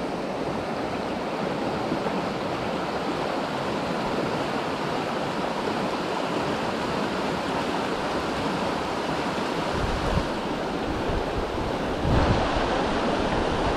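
Steady rushing of a flowing river's current, with brief low rumbles about ten and twelve seconds in.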